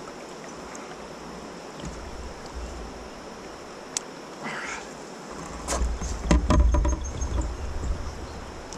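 Kayak on a river: steady water noise around the hull with scattered knocks and clicks, and a louder burst of low rumble and clatter about six seconds in.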